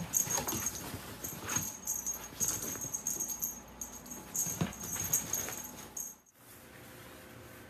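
A kitten playing with a wand toy on a bed: soft thumps and the rustle of a pile of clothes, the loudest thump a little over four and a half seconds in, with a thin high tone coming and going. These stop suddenly about six seconds in, leaving a faint steady hum.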